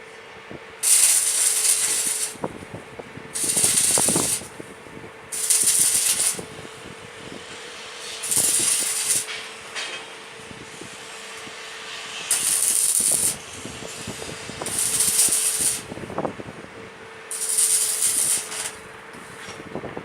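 Welder laying a series of short tack welds: seven crackling, hissing bursts of about a second each, spaced a second or two apart, over a steady hum.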